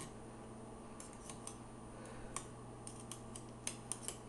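A utensil scraping mashed potatoes off a KitchenAid stand mixer's wire whip, making scattered light clicks and scrapes against the whip's wires and the stainless steel bowl, with the mixer's motor switched off. The clicks come more often near the end.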